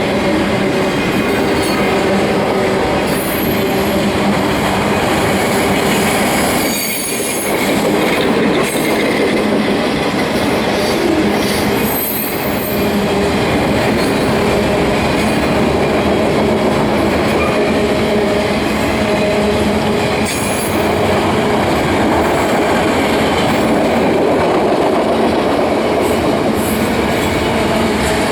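Union Pacific autorack freight train rolling past: steady, loud noise of steel wheels on the rails, with clicking over rail joints and some wheel squeal.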